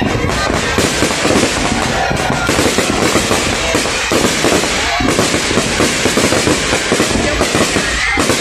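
Fireworks display going off in a dense, unbroken barrage of bangs and crackles.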